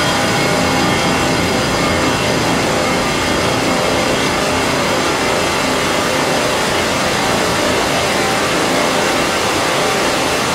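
Eurorack modular synthesizer in a feedback loop through a chain of Make Noise echo modules, giving a dense, steady drone: a loud noisy wash with many held tones layered in it.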